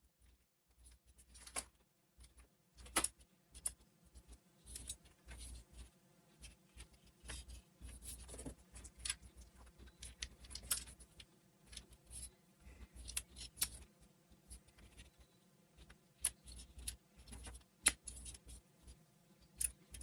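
Irregular light clicks and metallic clinks of small parts being handled and fitted together while reassembling a jukebox's write-in read-out mechanism, with faint handling thumps.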